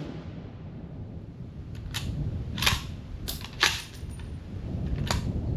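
About six short, sharp cracks and clicks at irregular spacing, between about two and five seconds in, over a steady low rumble: shooting-range sounds, much quieter than a close .308 shot.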